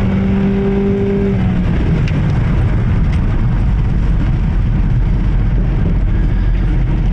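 Jeep being driven, its engine and road noise running steadily. A level drone for the first second and a half gives way to an even rumble. The engine is pulling without the hesitation and misfire that the faulty aftermarket crank sensor had caused.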